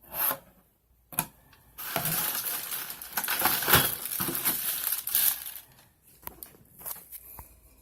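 Clinking and rustling of plumbing parts being handled, a dense stretch of about three and a half seconds with scattered single clicks before and after.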